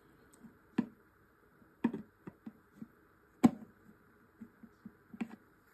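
Hard plastic parts of a brush-cleaning gadget, a white tray and a pink-lidded jar, knocking and clicking as they are handled and pressed together. There are about half a dozen separate knocks, the loudest about three and a half seconds in.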